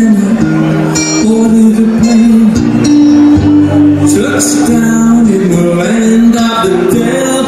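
A male singer accompanying himself on amplified acoustic guitar in a live performance: a sung melody of held notes over strummed chords.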